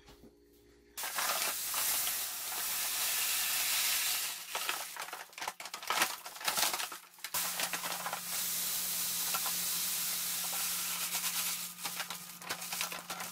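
Grain pouring from a paper sack into a stainless kettle of warm water, mashing in: a steady hissing rush that starts about a second in, broken around the middle by the crackle of the paper sack being shifted, then steady again.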